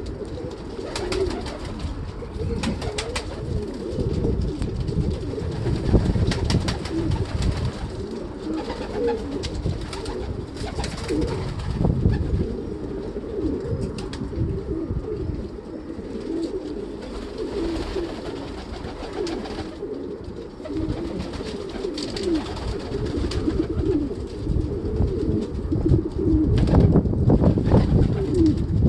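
A flock of domestic pigeons cooing continuously, many birds overlapping, with sharp flutters of wing flapping now and then. The flapping is loudest near the end.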